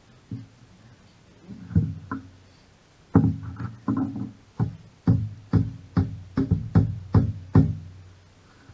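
About a dozen sharp knocks, each with a short pitched ring, scattered at first and then settling into a steady beat of about two to three a second.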